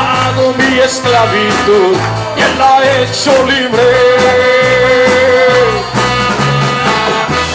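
Upbeat band music with bass and drums under a lead melody that holds one long note about halfway through.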